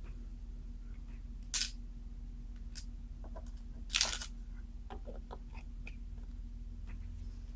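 Small screwdriver and screws clicking and tapping against the plastic underside of a Sony Vaio laptop as it is put back together. There are two sharper clicks, about one and a half and four seconds in, with lighter ticks between, over a steady low hum.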